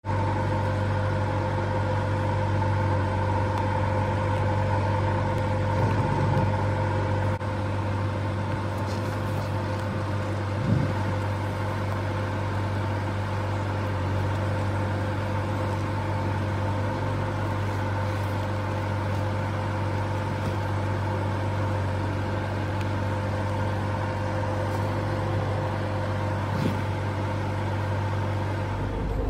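Lorry engine running steadily, heard from inside the cab as an even low hum with a faint steady whine above it, and one short knock about eleven seconds in.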